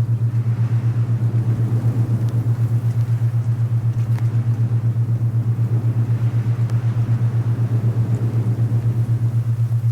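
Alpha binaural-beat tone, a loud steady low hum that pulses evenly several times a second, over soft wind noise that swells and fades in gusts.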